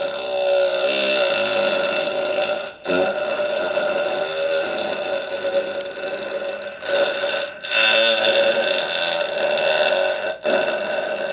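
A man belching: a run of long, loud belches, each drawn out for several seconds, with short breaks about three times between them.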